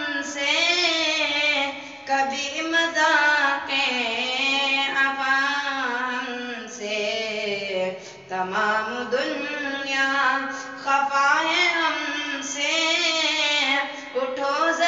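A boy singing an Urdu naat solo with no instruments, drawing out long ornamented notes that waver and slide in pitch, with brief breaks for breath.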